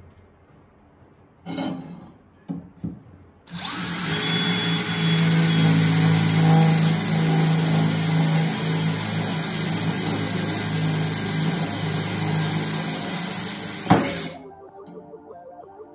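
DeWalt DCD778 brushless 18 V cordless drill in second, high-speed gear, drilling through a square steel tube. A brief burst comes about a second and a half in, then the drill runs steadily for about ten seconds and stops near the end.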